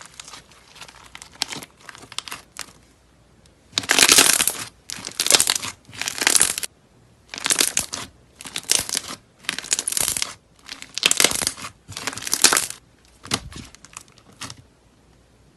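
Slime being pressed and squeezed by hand, making short bursts of crisp, crackling noise. About nine louder bursts follow one another at roughly one a second from about four seconds in, with fainter ones before and after.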